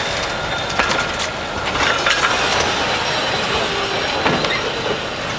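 Narrow-gauge passenger coaches and an open wagon rolling slowly past on steel wheels: a steady rolling rattle, with irregular sharp clicks as the wheels cross rail joints.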